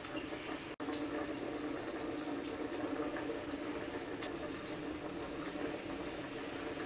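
Steady crackling hiss of a fireplace video playing on a laptop, with scattered faint pops; it breaks off for an instant about a second in.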